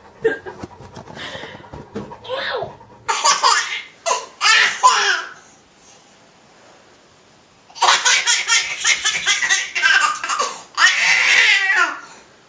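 A baby laughing: a couple of short fits a few seconds in, then, after a pause, a long run of rapid belly laughs near the end.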